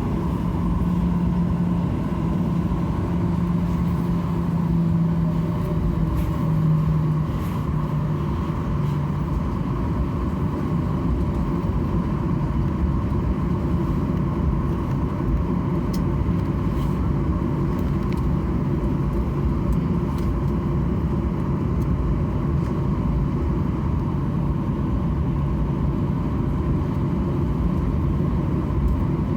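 Steady rumble of a Boeing 737-800's CFM56-7B jet engines and air systems while the airliner taxis, heard inside the cabin. A low hum steps down in pitch about seven seconds in.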